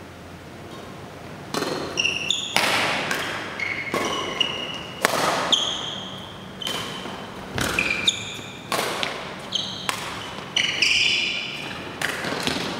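Badminton doubles rally: racket strings striking the shuttlecock about once a second, each hit a sharp crack that echoes in the hall, starting about a second and a half in. Short high squeaks of court shoes on the floor come between the hits.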